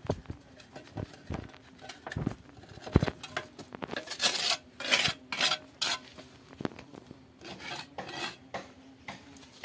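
Metal hand trowel scraping and tapping wet cement into place on a concrete wall around a pipe: irregular scrapes and clinks, busiest in the middle.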